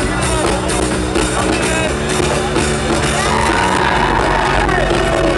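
Loud electronic dance music with a steady beat, played over a festival sound system. A high synth melody line comes in about three seconds in.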